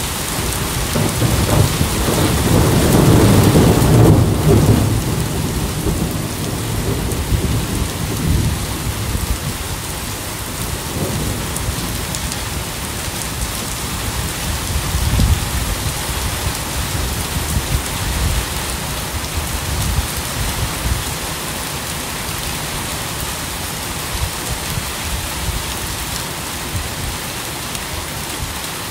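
Steady rain falling, with a long roll of thunder that builds and peaks a few seconds in, and fainter rumbles of thunder later on.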